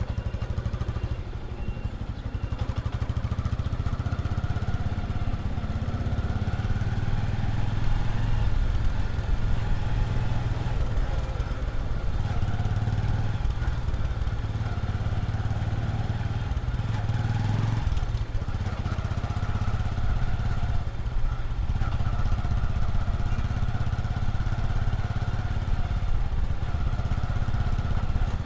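Small motorcycle engine running as it rides along a paved street, its pitch rising and falling with the throttle over a steady low rumble.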